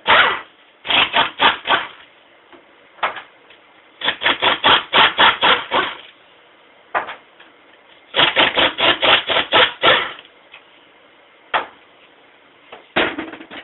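Wrench loosening the oil pan bolts on a 700R4 automatic transmission: runs of quick clicks about one to two seconds long, with short pauses and a few single clicks between them.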